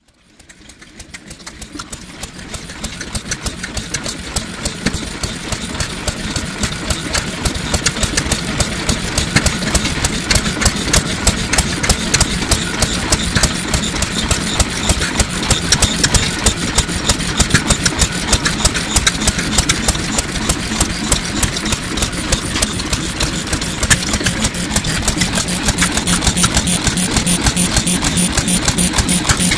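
A 1930s SYOKI single-cylinder stationary oil engine (2.5–3.5 hp, about 560–690 rpm) running steadily at slow speed, a rapid, even clatter of valve and igniter clicks over the low beat of its firing. The sound fades in over the first several seconds.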